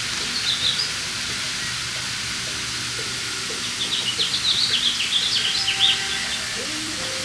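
Amazon parrots giving short, high chirps over the steady hiss of a shower spray of water, with a quick flurry of chirps past the middle.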